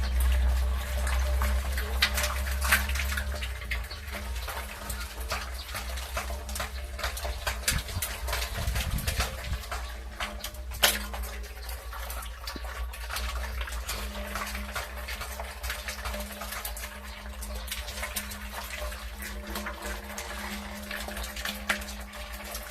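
Water splashing and dripping in many small irregular splashes, with one sharper splash about eleven seconds in, over a steady low rumble.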